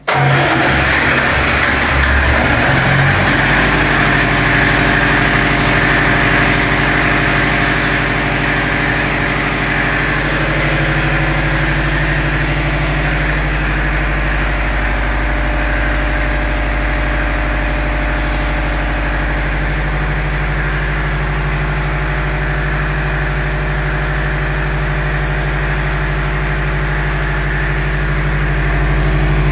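Generator engine running loudly and steadily after being started remotely by a Victron inverter system's autostart. It comes in suddenly and settles to an even speed within about three seconds.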